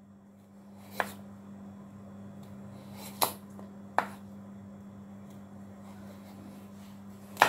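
Kitchen knife slicing through a carrot, the blade knocking on a wooden cutting board four times at uneven intervals, the last knock the loudest, over a steady low hum.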